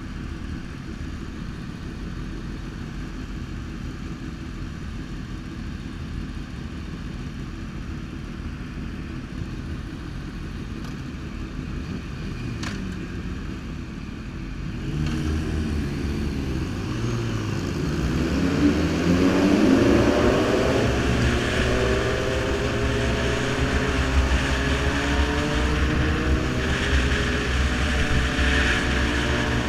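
Sport motorcycle engine idling at a stop, then about halfway through pulling away and accelerating, its pitch rising, before settling into a steady cruise with wind rush.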